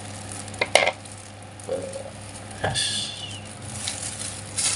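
Clear plastic takeaway bag of soup crinkling and rustling as it is handled, with a sharp crackle just under a second in and more rustling around three seconds in and near the end, over a steady low hum.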